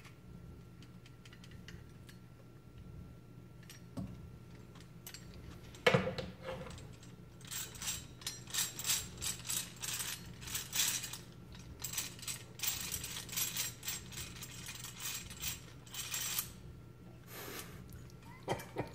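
Antique cast-iron hand-cranked peach peeler being worked: metal parts clicking and rattling, a sharp knock about six seconds in, then a long run of rapid metallic clattering as the crank turns its gears.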